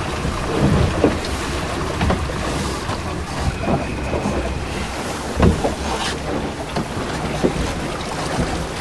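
Wind buffeting the microphone and the sea rushing along the hull of a small sailboat under way in choppy water, with a few short knocks.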